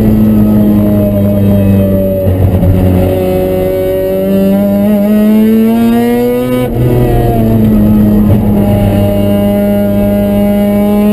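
Mazda RX-7's two-rotor rotary engine heard from inside the cabin, pulling hard under full throttle. The pitch climbs, drops sharply at a gear change about seven seconds in, then climbs again as the car accelerates.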